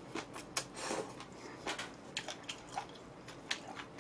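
A person chewing a mouthful of black-bean-sauce instant noodles close to the microphone: wet mouth smacks and clicks at irregular intervals.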